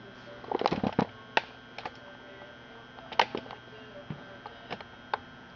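Handling noise: scattered light clicks and knocks, a cluster of them about half a second to a second in and single ones every second or so after.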